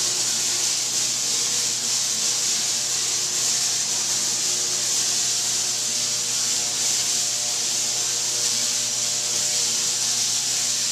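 Tesla coil firing: its spark discharges give a steady, hissing electrical buzz, with a faint hum of steady tones beneath.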